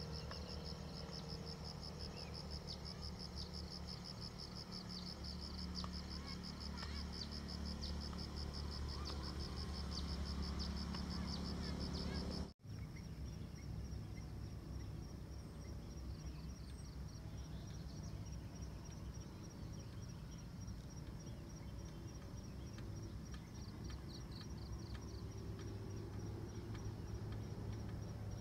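Insects chirring outdoors, a faint steady high pulsing trill over a low rumble. It breaks off for an instant about twelve seconds in and carries on more faintly.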